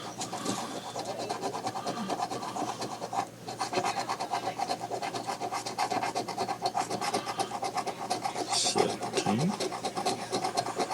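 Rapid, repeated scraping of a scratch-off lottery ticket as its coating is rubbed away, with a brief pause about three seconds in.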